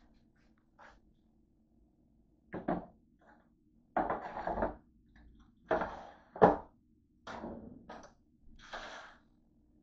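A run of metal clatters and thunks, about six in all beginning a couple of seconds in and sharpest past the middle: an aluminium sheet pan and the door and rack of a Cuisinart air fryer toaster oven being handled.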